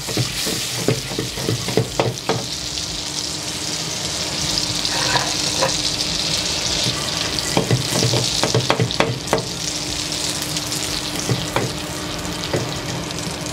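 Diced butter sizzling and foaming in a stainless steel sauté pan as it melts and starts toward brown butter (beurre noisette), with a few clicks and knocks as the pan is handled. A steady low hum comes in about two seconds in.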